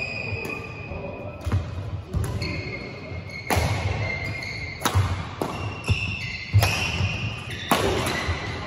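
Badminton rally: about six sharp smacks of rackets hitting the shuttlecock, roughly one every second, echoing in a large hall, with squeaks of court shoes and thuds of footsteps between the shots.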